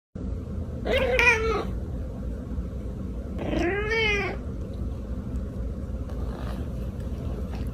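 A cat meowing twice, two drawn-out meows about two and a half seconds apart, the second rising and falling in pitch, over a steady low rumble.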